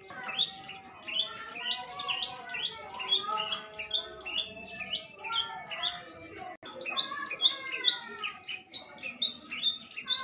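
Young prenjak lumut singing steadily, a fast, continuous run of short, sharp chirps and warbles, with a brief break about six and a half seconds in.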